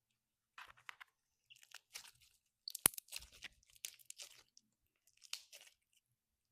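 PEACHY.BBIES slime being squeezed and worked, giving crackles and pops in several short clusters separated by pauses, with the sharpest pop about three seconds in.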